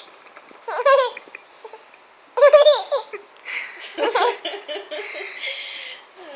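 Baby laughing in three short, high-pitched bursts, with a steady hissing noise running under the later part.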